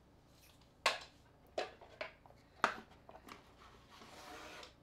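Sharp plastic clicks and knocks, about five in all, as a precision screwdriver bit kit is opened and handled. A soft rubbing sound builds near the end.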